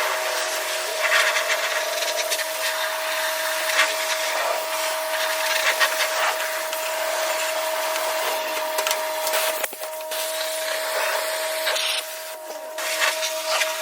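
Car wash pressure-washer wand spraying water into a Jeep's interior: a steady loud hiss with a steady whine under it, cut briefly twice near the end.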